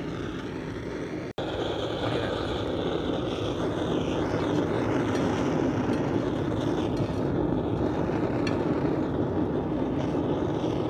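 Blow torch flame burning steadily, a continuous rushing noise as it heats the pan of frying chicken, with a momentary dropout just over a second in.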